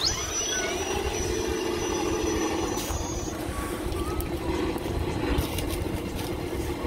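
RC rock crawler's electric motor and drivetrain whining as it drives. A high steady whine rises in at the start and stops about three seconds in, over wind noise on the microphone.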